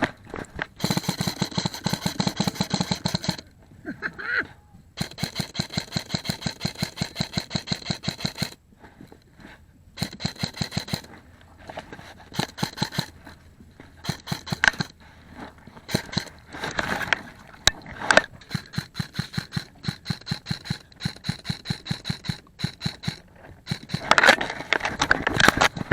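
Airsoft guns firing in repeated full-auto bursts: rapid, evenly spaced shots in runs of one to three seconds with short pauses between, a steady high whine under the longer runs.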